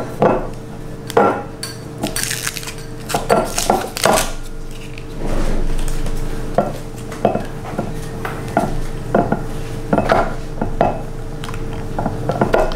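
Scattered clinks, taps and rustles of a champagne bottle being handled among glass flutes on a counter while the top of the bottle is worked open, over a steady low hum.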